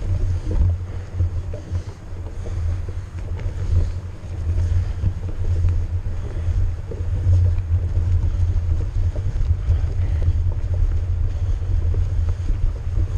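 Wind rumbling and buffeting on the microphone of a GoPro riding along on a mountain bike over a snowy trail, with scattered light clicks and rattles from the bike.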